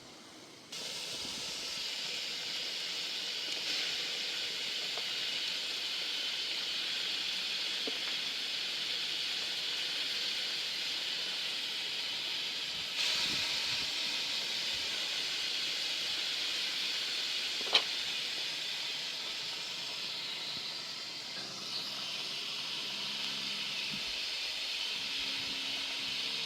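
Steady sizzling hiss of meat frying in a pan over a wood fire, with one sharp click about eighteen seconds in.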